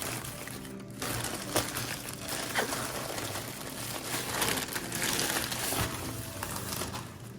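Packaging crinkling and rustling as a boxed keyboard is unwrapped by hand, with scattered sharp clicks and crackles.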